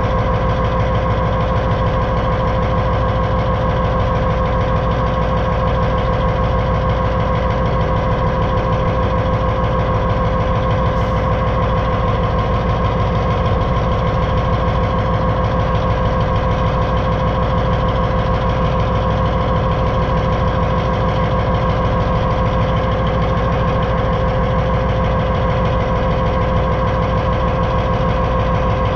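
Diesel locomotive No. 1503 rumbling steadily underway, heard from on top of its hood. A steady whine runs through the rumble.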